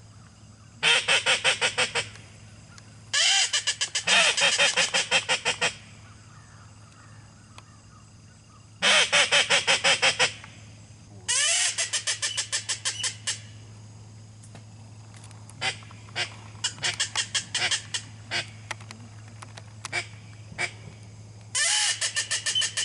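A flock of geese honking overhead in repeated volleys, each a fast run of calls lasting a second or two, with short pauses between.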